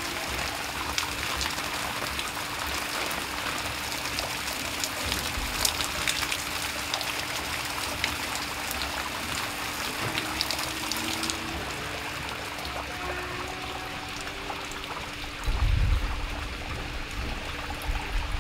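Water spilling from the rim of an umbrella-topped fountain and splashing below: a steady patter with many separate drops. A short low rumble comes about three-quarters of the way through.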